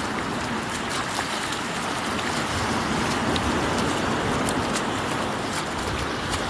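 Sea surf washing up the beach: a steady rush of foaming water that swells a little in the middle.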